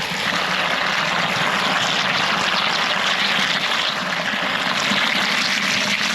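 Water running from a campground spigot into a big jug, a steady rushing hiss as the jug fills.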